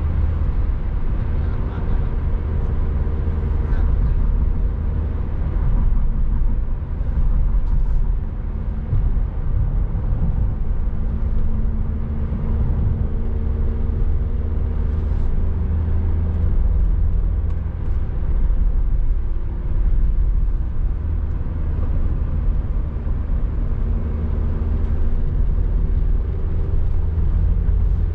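Car on the move: a steady, low road-and-engine rumble.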